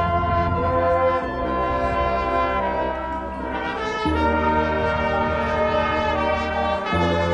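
Marching band brass playing long held chords over a strong bass, moving to a new chord about a second in, again at about four seconds, and once more near the end.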